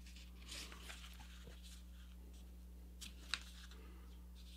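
Faint rustling and light clicks of a sheet of A4 paper being folded and its crease pressed flat by hand, with one sharper click about three seconds in, over a low steady hum.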